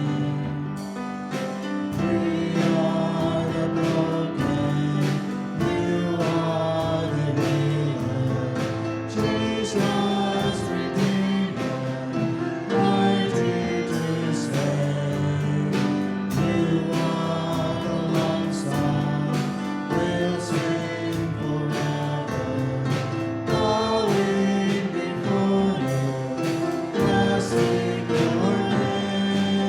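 Congregational worship song: voices singing together with instrumental accompaniment and a steady beat.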